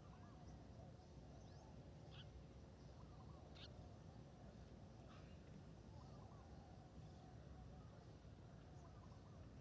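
Faint, distant bird calls over low background rumble, near silence, with a few brief high chirps about 2, 3.5 and 5 seconds in.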